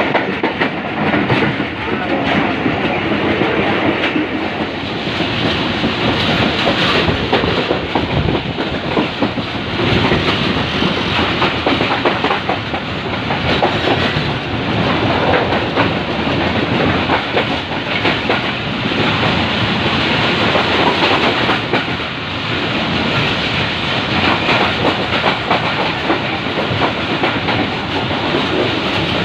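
Passenger train coach running at speed, heard from its open doorway: a steady, loud noise of wheels on the track.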